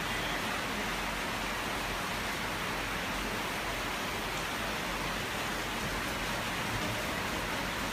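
Heavy rain falling steadily: an even hiss.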